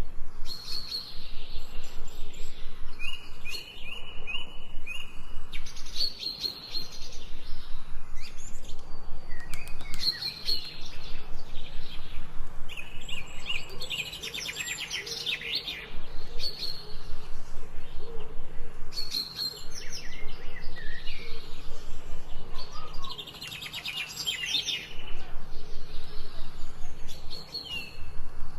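Several birds singing and chirping over one another: short repeated whistled phrases and fast trills, with a few brief lulls.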